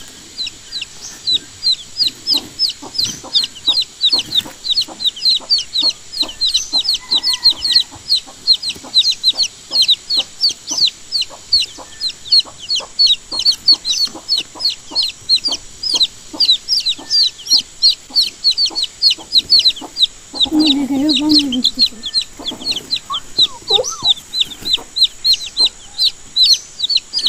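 Baby chicks peeping without pause: a rapid stream of short, high-pitched, falling peeps, several a second.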